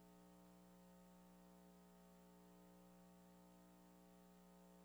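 Near silence with a faint steady electrical hum that does not change.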